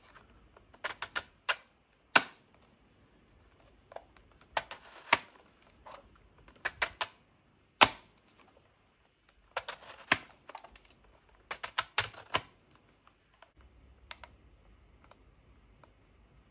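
Plastic screen slider of a mutantC handheld Raspberry Pi computer being pushed open and shut several times: sharp clicks and short scraping rubs, coming in bunches with pauses between. The new slide is still somewhat stiff.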